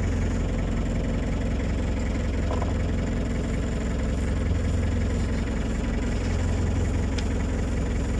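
Fishing boat's engine idling, a steady low drone with an even pulse. A faint short click comes about seven seconds in.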